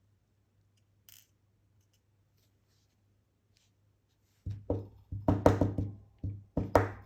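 Small metal lock parts knocking and clicking while a Kaba experT pin-tumbler cylinder is taken apart: quiet at first, then a quick run of sharp knocks, some with a short metallic ring, in the last few seconds.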